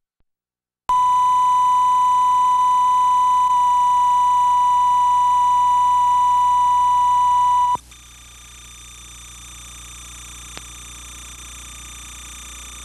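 Bars-and-tone reference tone at the head of a videotape: one steady, loud, pure beep that starts about a second in and cuts off suddenly about eight seconds in, leaving faint tape hiss and hum.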